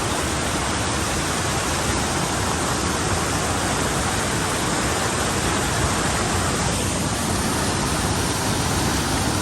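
Steady, even rush of fast-flowing water from a rain-swollen river.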